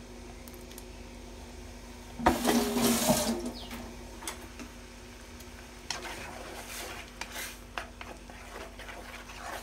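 Liquid splashing into a stainless steel wok of pumpkin about two seconds in, lasting about a second. Then a spoon stirs and scrapes against the metal wok in short strokes.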